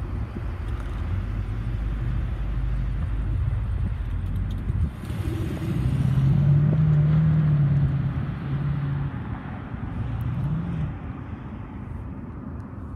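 Low rumble of a receding freight train that stops about five seconds in, followed by a car engine running as it passes, its pitch steady and then briefly rising near the end.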